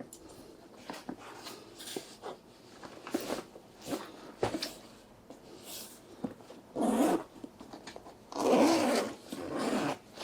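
Zipper on a drone shoulder bag being unzipped, with light handling clicks and rustles and then two long rasping pulls near the end, the second the loudest.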